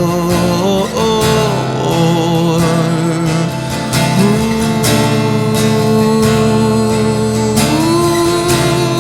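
Worship song: acoustic guitar strummed steadily under long held sung notes that slide to a new pitch about a second in, again around four seconds and near the end.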